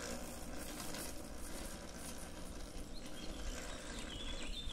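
Home-built radio-controlled electric lawn mower running at a distance: its hoverboard hub motors and 24 V scooter motor spinning a brush-cutter blade give a steady low hum under the outdoor noise. A few short high chirps come in near the end.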